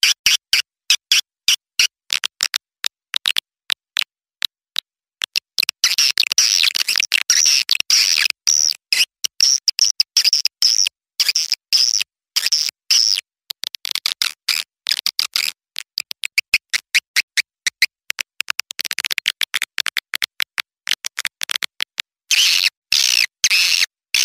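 Recorded calls of young swiftlets of the kind played to lure swiftlets into a nesting house. They are a fast, stuttering chatter of high chirps and clicks, which grows denser from about six seconds in to about thirteen, and again near the end.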